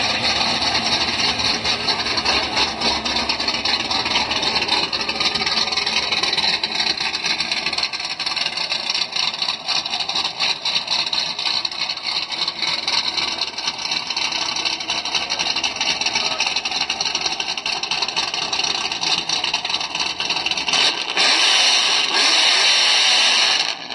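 Chevrolet Camaro's stroker LT1 small-block V8 running, recorded as a loud, harsh, heavily distorted noise. Near the end the sound changes to a steady hiss with no low end.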